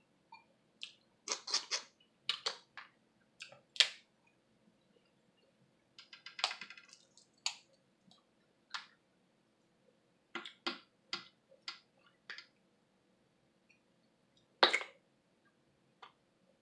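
Shrimp shells being peeled off by hand, making scattered sharp clicks and crackles. A dense run of crackling comes about six seconds in, and one louder snap near the end.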